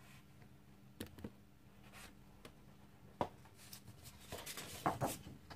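Sheets of 12-by-12 patterned scrapbook paper being handled and turned over by hand: soft paper rustles and light taps, a few at first and busier near the end.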